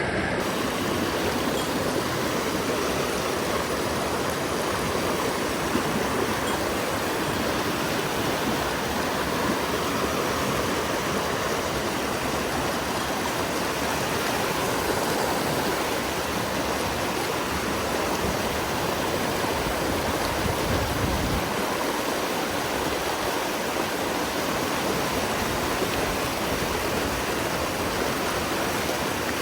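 Mountain stream water rushing over rocks in a steady, even flow.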